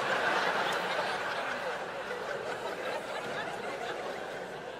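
Audience laughing, loudest at the start and slowly dying down.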